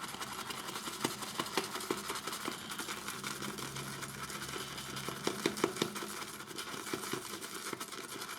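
Shaving brush being worked around a bowl of shaving soap, building lather: a steady run of soft, rapid clicking and tapping of bristles and handle against the bowl, with a few sharper ticks.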